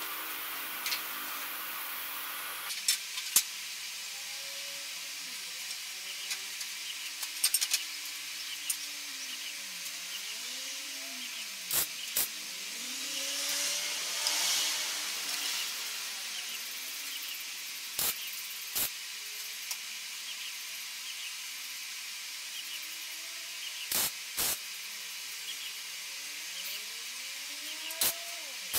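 Arc welding on a steel-tube frame: a handful of short tack welds, each under a second long and several seconds apart, with a longer stretch of welding about halfway, over a steady hiss.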